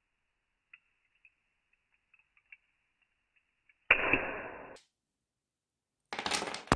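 ABS 3D print cracking: a few faint ticks, then a loud sudden crack just under four seconds in that dies away over about a second, and a second loud crack near the end.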